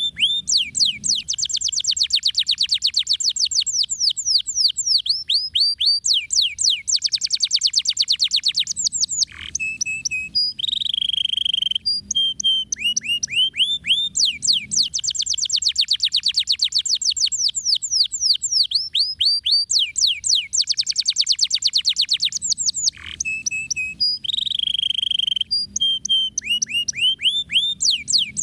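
Domestic canary singing continuously: long, fast rolling trills of quick downward-sweeping notes, broken twice by a short held whistle before the trills start again. The same sequence of phrases comes round a second time about halfway through.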